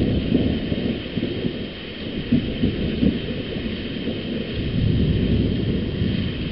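Thunder rolling in a long, deep rumble with irregular crackles and surges, loudest at the start and swelling again past the middle, over a steady hiss of rain.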